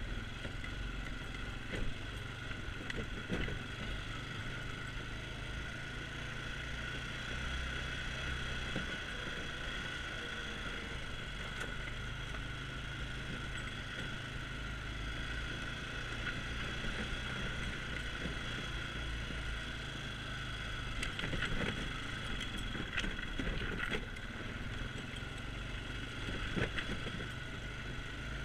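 ATV engine running steadily as it is ridden along a rough dirt trail, with a steady drone and whine. A few short knocks come in the last third, as it goes over bumps.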